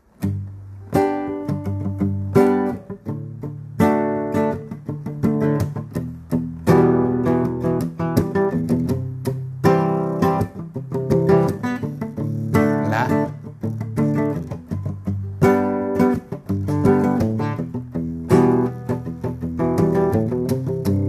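Nylon-string classical guitar strummed in a steady rhythm of chords, the strumming hand damping the strings so that many strokes cut off short between beats.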